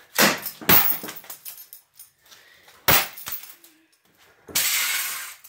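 Steel chain swung down onto a Kindle e-reader lying on a board: two sharp smashing strikes in quick succession, two more about three seconds in, and a harsh rasp lasting most of a second near the end.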